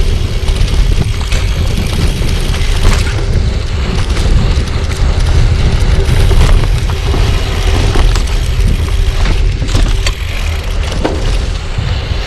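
Wind buffeting the microphone of a handlebar-mounted GoPro while riding a bicycle: a loud, steady low rumble with tyre noise and scattered clicks and rattles from the bike.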